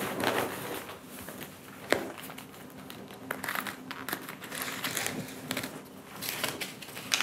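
Paper or packaging rustling and crinkling as it is handled at a table, with scattered small clicks and one sharp knock about two seconds in.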